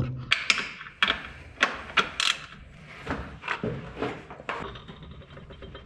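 Irregular sharp clicks and knocks of hand tools being worked on the fixings of a car's engine-mount bracket, about a dozen over a few seconds.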